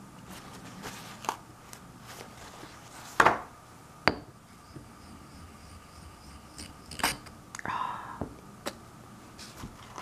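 Green ink stick being handled and rubbed on an inkstone: scattered sharp clicks and knocks, the loudest about a third of the way in, and a short scratchy scrape near the end. The grinding noise is that of a low-quality ink stick.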